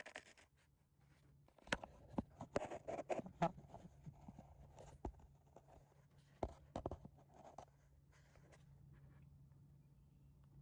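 Faint scattered clicks, knocks and scraping of hand work with tools and parts, in irregular bursts that thin out in the last couple of seconds.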